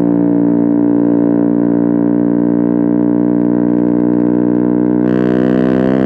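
KTM Duke 125's single-cylinder engine running under way through an aftermarket Akrapovic exhaust, a steady drone whose pitch rises slowly.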